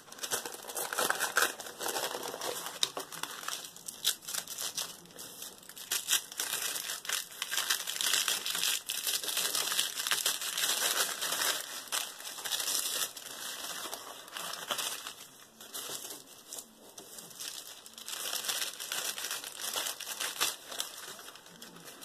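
Wax paper and tissue paper crinkling and crackling in an irregular run as they are peeled off a glued piece of fabric.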